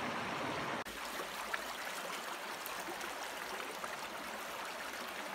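Shallow creek water running over rocks, a steady rush. The sound changes abruptly just under a second in.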